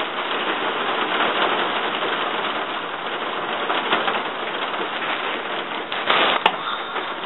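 Steady rain falling through the woods, an even hiss. Near the end comes a short louder rustle and a sharp click.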